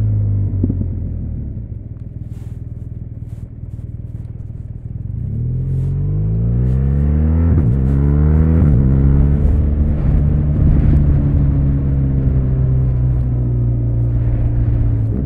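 BMW R1200RS's 1170 cc liquid-cooled boxer twin, heard onboard: quieter off the throttle at first, then accelerating from about five seconds in with the pitch climbing. A brief dip near eight seconds marks a gear change, and then the engine pulls steadily at higher revs.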